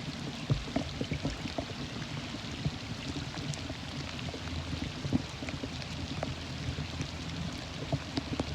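Steady rain falling, with many small scattered drop ticks over a steady hiss.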